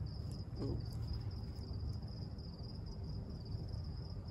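Night insects trilling: a steady, high-pitched, finely pulsing chirr, heard over a low steady rumble.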